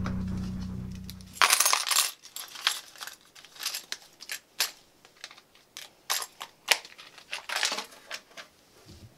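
Background music fading out, then a run of short rustles and light clicks as a cardboard valentine box and card are handled.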